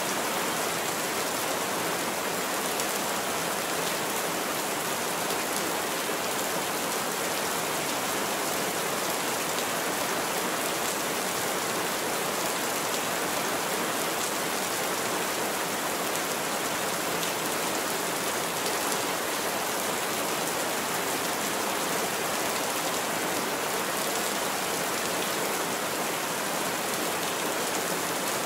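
Heavy rain falling steadily on a roof, a dense, even hiss that neither swells nor breaks.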